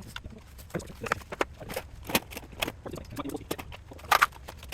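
Irregular clicks, knocks and clinks of hand tools and metal parts being handled, with a loud cluster of knocks about four seconds in.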